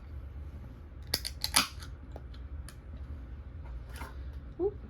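A cluster of sharp clicks and taps about a second in, with a few single clicks later, over a steady low hum.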